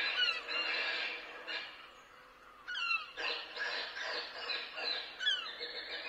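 Bird-scaring calls broadcast from PA speakers: a dense clamour of high, squealing bird cries with a short falling screech about every two and a half seconds, dipping into a brief lull about two seconds in.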